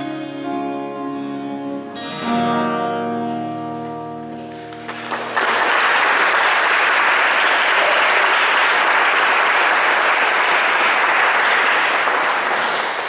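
Two acoustic guitars play the closing chords of a song, the last one struck about two seconds in and left to ring and fade. About five seconds in, an audience breaks into steady applause, which dies away near the end.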